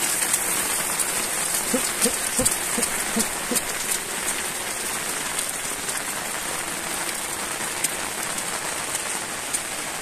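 Steady rain falling, an even hiss with many sharp drop ticks through it.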